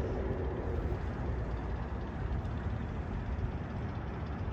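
Steady low outdoor background rumble with a faint even hiss, with no distinct events.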